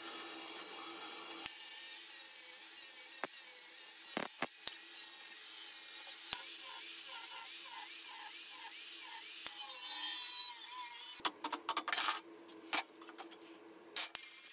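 Power grinder with an abrasive attachment scouring the paint off a steel refrigerant gas can, a harsh steady grinding over a motor whine. About eleven seconds in it stops and starts in short bursts, then starts again near the end.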